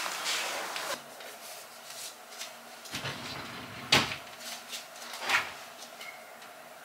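A quiet room with a few light knocks and bumps of things being handled, the sharpest about four seconds in and a softer one a second later.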